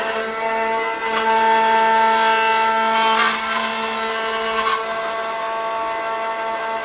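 Five-axis CNC carving machine's spindle running with a steady whine, louder between about one and three seconds in, with a few short rasps from the cutter.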